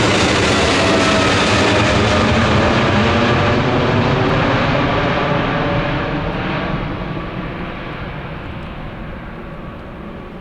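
Jet airliner's engines at high power passing by, their whine falling in pitch, the roar fading away over the last few seconds.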